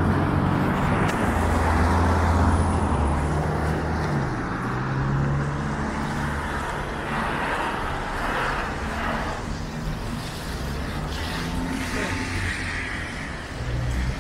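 City street traffic: cars driving past with engine hum and tyre noise, loudest in the first few seconds.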